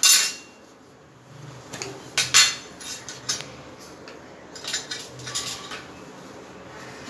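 Metal spoon clinking and tapping against a stainless steel bowl and spice containers: a handful of separate sharp clinks, the loudest at the start and about two seconds in.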